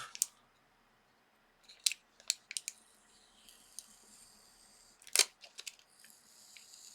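Small sharp clicks and taps as the phone's parts are handled, the loudest about five seconds in, over a faint high scratchy rasp of a sticker being peeled off.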